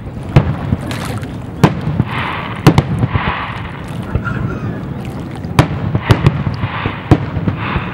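Fireworks display: aerial shells bursting in about ten sharp bangs at uneven intervals over a steady low rumble.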